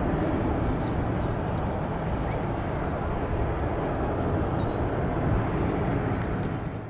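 Boeing 787-9 airliner's twin jet engines at climb power, a steady roar from the jet climbing away after takeoff, dropping off sharply at the very end.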